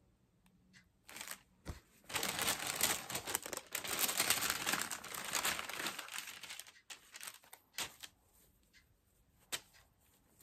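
Paper and craft-kit materials handled by hand: crinkling and rustling that starts about a second in and runs for some five seconds, followed by a few light clicks and taps.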